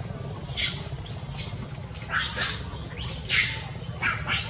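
Baby long-tailed macaque giving high-pitched squealing calls, each one rising and then falling in pitch, about one a second, over a steady low hum.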